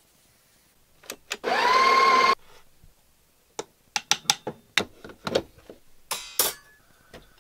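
An espresso machine's grinder motor runs briefly: a whine that rises and settles to a steady pitch for under a second. Then comes a string of clicks and knocks of the metal portafilter being handled and fitted, with a short hiss near the end.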